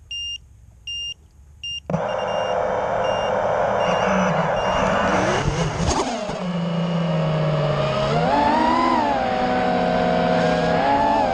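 Three short electronic beeps, then about two seconds in an FPV racing quadcopter's brushless motors and propellers spool up into a loud whine that rises and falls in pitch with the throttle.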